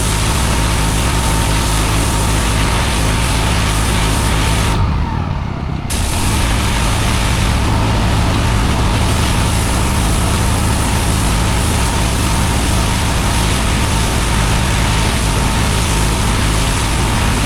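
Pressure washer running: a steady engine hum under the loud hiss of the high-pressure water jet blasting block paving. The spray cuts out for about a second about five seconds in while the engine keeps running.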